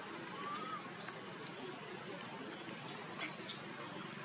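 Forest ambience: a steady high insect drone, with a short rising chirp about half a second in and a few faint clicks.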